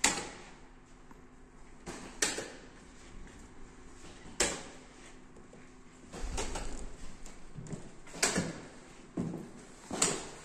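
Hand slaps on the large plastic light-up push buttons of a reaction-time wall game: sharp knocks at an uneven pace, about ten in all, some in quick pairs, over a low steady hum.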